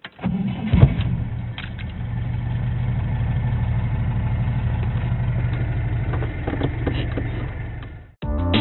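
A vehicle engine starts up and then runs steadily at idle, with a few sharp clicks about a second in. It fades out near the end, and music begins right at the end.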